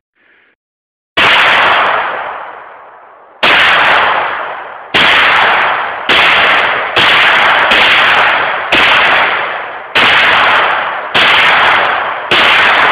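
Hi-Point 9mm semi-automatic carbine fired in an unhurried string of about ten shots, some in quick pairs and some over a second apart. Each shot ends in a long fading echo.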